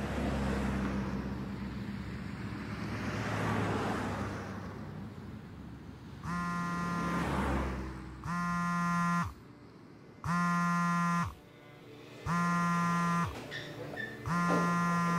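Smartphone buzzing with an incoming call: five steady one-second buzzes about two seconds apart, starting about six seconds in, after a few seconds of low rushing noise.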